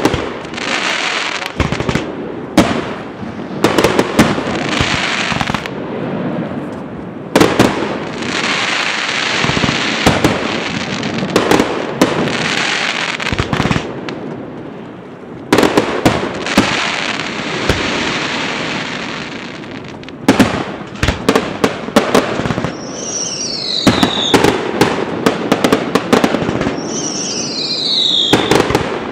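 Fireworks display: aerial shells bursting with many sharp bangs, with long stretches of crackling between them. Near the end come two high whistles that fall in pitch.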